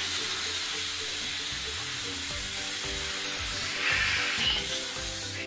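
Air hissing steadily out of a balloon through the hole in a bottle cap glued to a CD, the air cushion that lifts the CD hovercraft so it glides; briefly louder about four seconds in.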